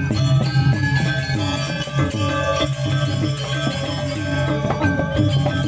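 Balinese gamelan orchestra playing dance accompaniment: many metal-keyed instruments ringing over a steady low pulse, with a bright cymbal shimmer on top.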